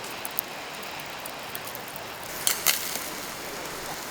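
Steady rushing of a flowing river, with a few sharp clicks or knocks, the loudest a quick cluster about two and a half seconds in.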